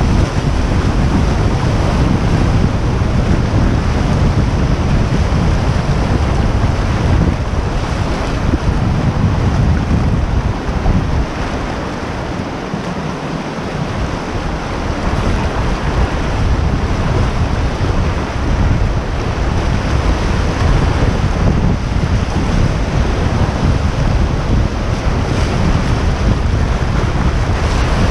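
Whitewater rapid rushing and splashing around a kayak, with a low rumble of wind on the microphone. The rumble drops away for a couple of seconds about twelve seconds in.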